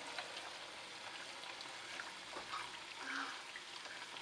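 Sopaipillas frying in a pan of hot oil: a steady sizzle with small scattered crackles.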